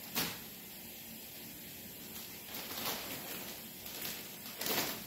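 Plastic food bags crinkling and rustling in a few short bursts, the loudest just after the start and near the end, with quiet room tone between.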